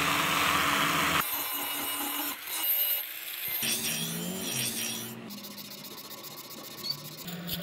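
Power tools working a steel cleaver blade in a run of short cut-together bursts: the blade grinding on an electric belt sander, then its edge ground on a bench grinder. The sound changes abruptly several times and is quieter for the last couple of seconds.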